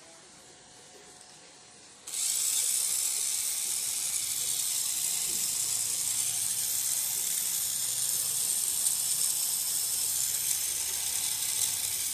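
Tamiya Mini 4WD car's electric motor and gears running at a steady speed as it is held in the hand, wheels spinning free: a steady high whirring that switches on suddenly about two seconds in.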